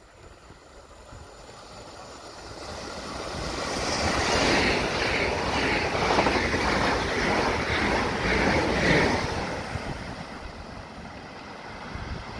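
Electric train passing at speed. Its rumble and wheel clatter build for a few seconds, are loudest in the middle with a clatter repeating about once a second, then fade as it goes by.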